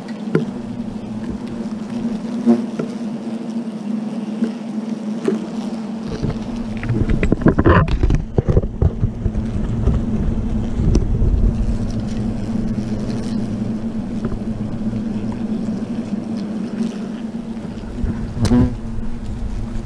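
European hornets swarming out of their nest in a tree hollow, buzzing close to the microphone in a steady drone: the colony stirred up by the nest treatment. About seven to nine seconds in, a loud stretch of rustling and knocks from handling comes over the buzzing.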